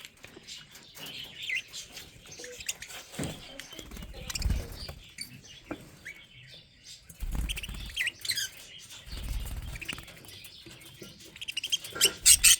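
Budgerigars chirping in many short, quick calls, with a few low rumbles in between and a loud cluster of chirps near the end.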